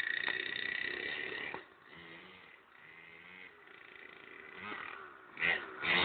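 Minimoto engine revving high with a buzzing whine for about the first second and a half, then dropping to quieter low running, and revving up again near the end.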